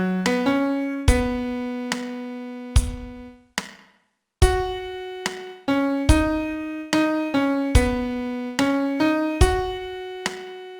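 Piano sound playing a slow song melody one note at a time, each note struck and left to ring, with a short break about four seconds in.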